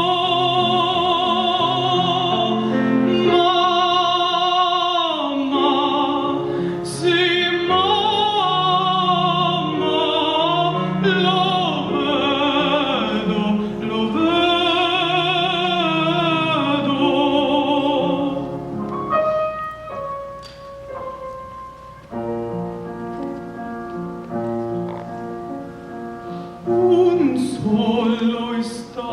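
An operatic voice singing with wide vibrato on long held notes over an instrumental accompaniment. About 19 seconds in the voice drops out and the accompaniment plays on alone, more quietly. The voice comes back near the end.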